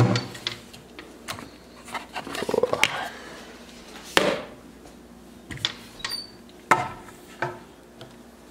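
Handling noise on a kitchen counter: a string of separate knocks, clicks and clatters as things are picked up, moved and set down, with the loudest knocks at the very start and about four seconds in.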